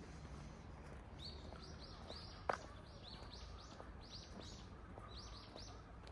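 A bird calling in a quick run of high, short chirps, a dozen or more in a few seconds. About two and a half seconds in there is a single sharp click, over a steady low outdoor background noise.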